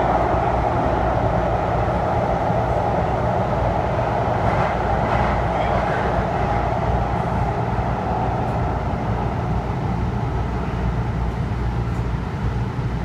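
Nippon Sharyo light-rail car running through a tunnel, heard from inside the car: a steady rumble of wheels on rail with a strong mid-pitched hum, easing slightly over the last few seconds.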